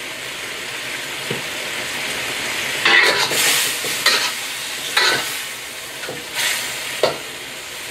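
Beef and vegetable stir-fry sizzling steadily in a wok over a gas burner, with a wok spatula scraping and tossing it in about five strokes from about three seconds in.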